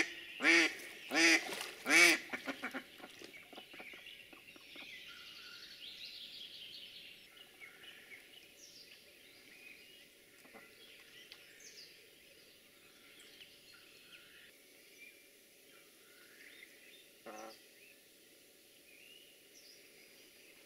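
Decoy hen duck quacking: a run of loud, evenly spaced quacks over the first two to three seconds, the calling that is meant to draw drakes in. After that it goes much quieter, with one more short call about 17 seconds in.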